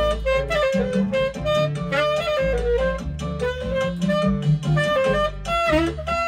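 Saxophone playing a flowing jazz-style melody over a backing track with a bass line.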